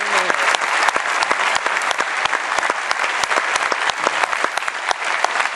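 Large audience applauding steadily, a dense clatter of many hands clapping.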